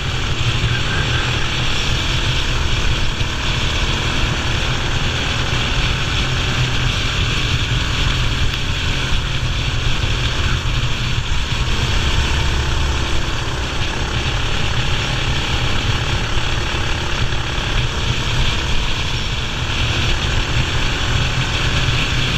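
Racing kart engine running steadily, heard onboard with rushing wind noise on the camera microphone.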